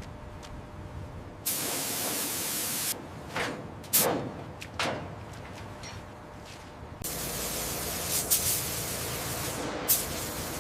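Compressed-air spraying, hissing in bursts: one lasting over a second about a second and a half in, three short whooshes around four seconds, then a steady hiss from about seven seconds on.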